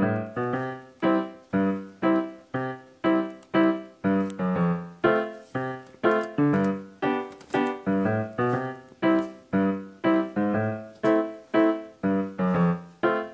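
Background piano music: chords struck at about two a second, each fading away before the next.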